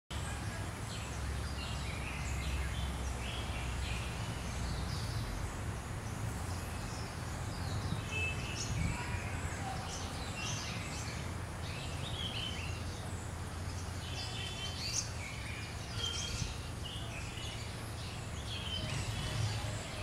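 Several birds chirping in short, scattered calls over a steady low rumble.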